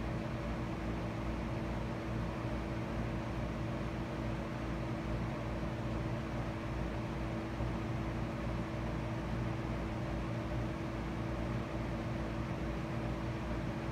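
Steady mechanical hum and hiss with a low drone, unchanging, with no distinct events.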